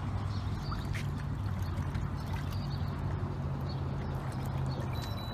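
Minn Kota Ulterra electric trolling motor running as it drives the boat in to the bank, a low steady hum that stops near the end.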